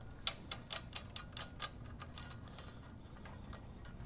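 Steel lifting chain links clinking as they are handled and hooked onto the engine, a quick run of light metallic clicks for about a second and a half, then fainter, sparser ones.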